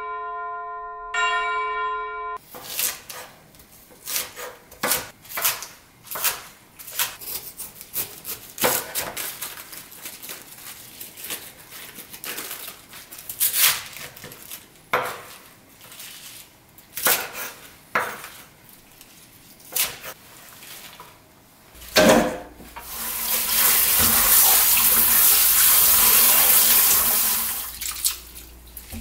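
A chime rings twice at the start. A knife then cuts through baby napa cabbage onto a wooden cutting board in irregular single strokes. Near the end a kitchen tap runs for several seconds into a stainless steel bowl of cabbage in the sink, then stops.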